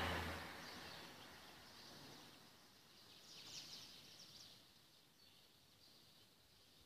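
Faint outdoor dawn ambience: a rushing noise fading out in the first second, then faint bird chirps about three seconds in.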